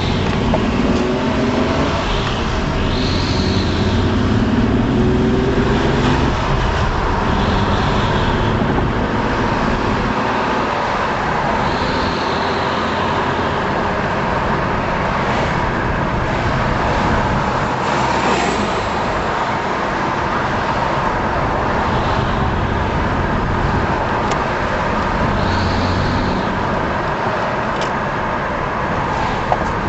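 Nissan Maxima engine running steadily with a fluttering sound of unknown cause.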